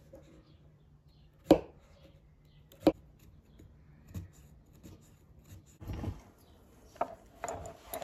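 Punch needle stabbing through burlap in an embroidery hoop: two sharp pops about a second and a half apart, then softer rustling of the coarse fabric and a few smaller pops near the end.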